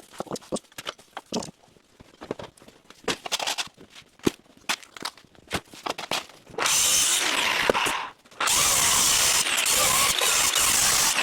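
Scattered knocks and clatter. Then a loud, steady, hissing machine noise starts about six and a half seconds in, stops briefly near eight seconds and starts again.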